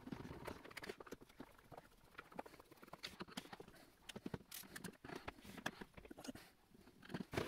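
A screwdriver turning screws out of the plastic back case of a Spektrum DX9 radio transmitter: faint, irregular small clicks and taps.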